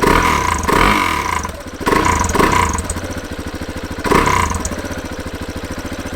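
Husqvarna 701's single-cylinder engine through its stock exhaust, blipped three times in short revs and then settling into an even, thumping idle about four and a half seconds in.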